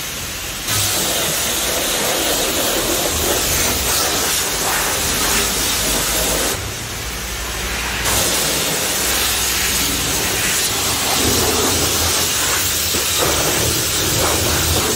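High-pressure water spray washing a car, a loud steady hiss. It starts about a second in, cuts out for about a second and a half midway, then resumes.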